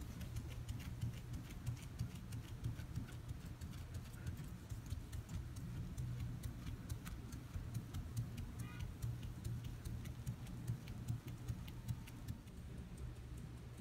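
Hand wet sanding: a 3000-grit Trizact disc on a foam palm sanding block rubbing in quick strokes over wet single-stage lacquer paint, cutting away the oxidized layer. The strokes come as a run of faint ticks and scrapes over a steady low hum.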